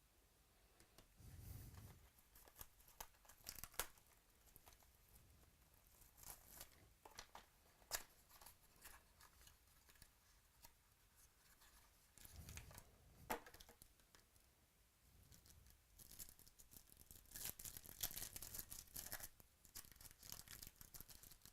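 Faint crinkling, rustling and light clicks of trading-card packaging and plastic sleeves being handled, with a busier stretch of crinkling near the end.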